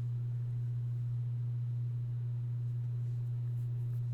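A steady low-pitched hum on one unchanging tone.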